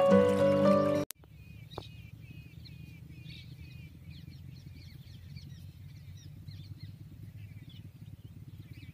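Music that cuts off abruptly about a second in, then birds calling outdoors with many short, repeated chirps over a steady low background rumble.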